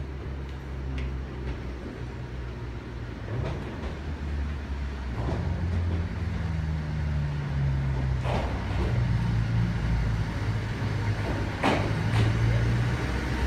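An Aizu Railway diesel railcar approaching and pulling into the station, its engine drone growing louder and shifting pitch as it comes in. There are two brief sharp sounds from the train, about 8 and 12 seconds in.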